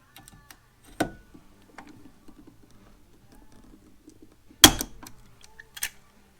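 Pop rivets being set into an aluminum panel with a rivet gun: small clicks of the tool and three sharp snaps as rivet mandrels break, the loudest about four and a half seconds in.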